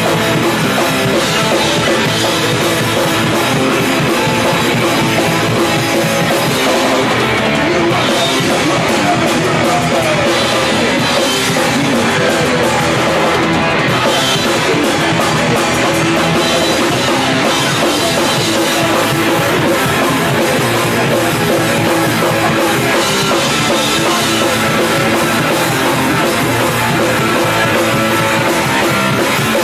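Hardcore punk band playing live, with distorted electric guitar and bass over a pounding drum kit at a steady full volume.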